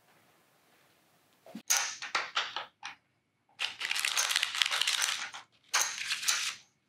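Poker chips and cards handled at a table: a run of sharp clatters, then a couple of seconds of steady rustling and clicking, then more clatters. The first second and a half is near silence.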